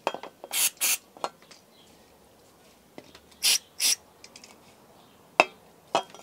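Aerosol brake cleaner sprayed in short hissing bursts, three pairs of quick sprays a few seconds apart, with light clicks and clinks of metal parts in between.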